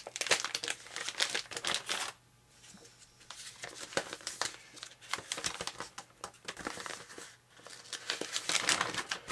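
Crinkling of a stapled plastic parts bag being handled and opened, in crackly bursts with short pauses about two seconds in and again near the end.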